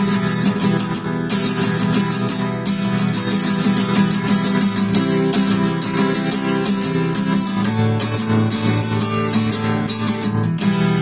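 Acoustic guitar strummed in a steady rhythm as an instrumental close to a song, settling on a ringing chord near the end.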